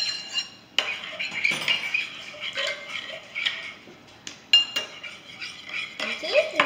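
A small spoon stirring sauce in a bowl, clinking and scraping irregularly against the bowl, with a couple of sharper clinks.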